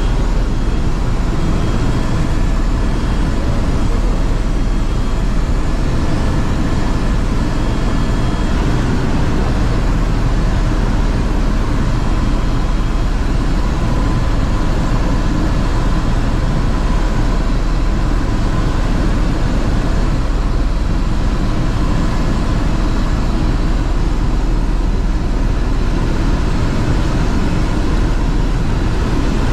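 Airbus H130 helicopter in cruise flight, heard from inside the cabin: a loud, steady drone of rotor and engine, heaviest at the low end, with a few faint steady whines above it.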